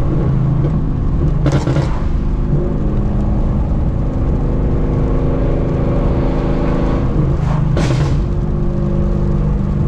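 Ford Mustang GT's 5.0 Coyote V8 running at a steady cruise through long-tube headers, an X-pipe and no mufflers, heard inside the cabin. Two brief rasping bursts break through, about a second and a half in and again near the end, where the engine note shifts.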